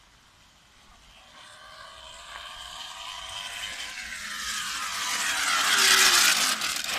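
Bicycle spokes flicking a folded aluminium drink can clipped by the wheel, making a motorbike-like buzz. It grows steadily louder as the bike comes closer, is loudest about six seconds in, then falls off quickly near the end.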